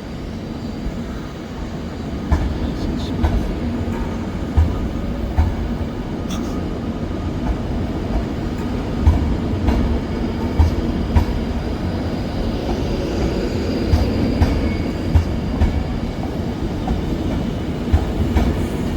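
Avanti West Coast Class 390 Pendolino electric train pulling out of the station: a steady low rumble with irregular sharp knocks from the wheels passing over the track.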